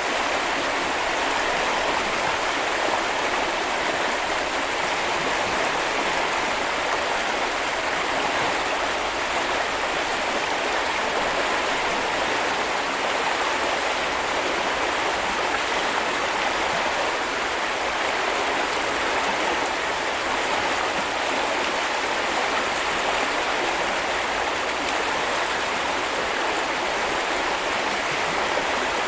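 A small river or brook flowing over stones, a steady rushing and babbling of water.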